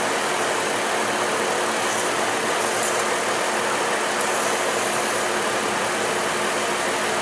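A 2003 Chevrolet Trailblazer's 4.2-litre inline-six idling steadily in park.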